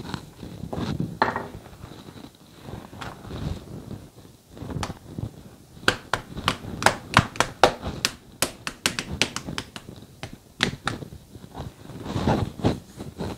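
Wooden rolling pin rolling paratha dough on a countertop in low, rumbling strokes. About six seconds in, the rolling gives way to a quick run of sharp taps and clicks as gloved hands work the dough. The rolling resumes near the end.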